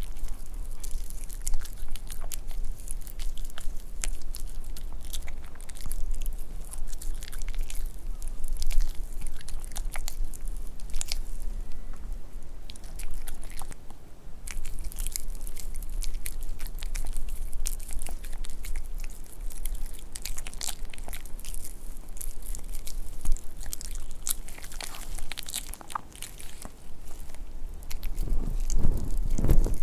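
White Pomeranian biting and chewing a piece of cooked beef held out to it, close to the microphone: a steady run of quick, sharp chomps and clicks.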